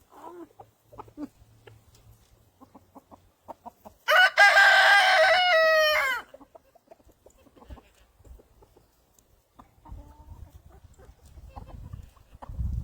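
A rooster crows once, about two seconds long, starting about four seconds in, its pitch falling at the end. Faint scattered clicks before and after.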